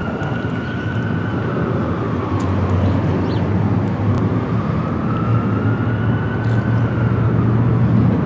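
A motor vehicle's engine running close by, growing louder over the first second or two, with a fainter siren wailing slowly underneath, its pitch rising and falling about once every six seconds.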